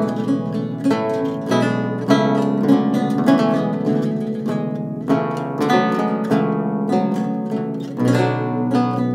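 Two baroque lutes playing a slow Andante in duet: plucked notes and chords ring and decay over a bass line, with a fresh chord struck every second or so.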